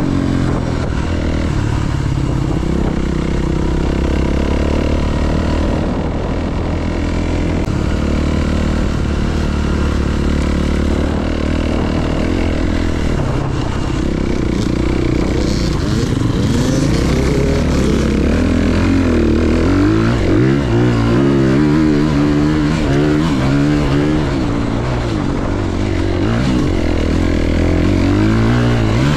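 Honda CRF300RX single-cylinder dirt bike engine running under way. Its revs hold fairly steady at first, then rise and fall repeatedly from about halfway as the throttle is worked.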